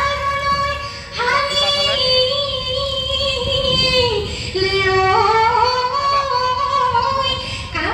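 A high voice singing a Bihu folk song in long held, wavering notes. The phrase breaks about four seconds in, and the next one starts low and steps upward.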